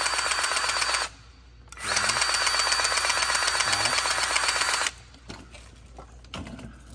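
Powered grease gun running in two bursts, about a second and then about three seconds, with a rapid, even chatter, forcing grease into a tapered wheel bearing to pack it.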